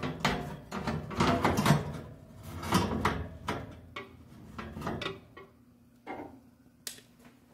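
Metal bundt pan set on an oven's wire rack and slid into the oven, the rack and pan scraping and clattering for about five seconds, loudest in the first two. Two single sharp clicks follow near the end.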